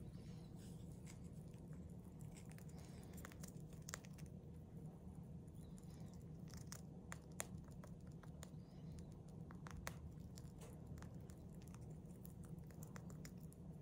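Syrian hamster nibbling a piece of popcorn: faint, irregular little crunches and clicks of its teeth on the popped kernel, over a steady low hum.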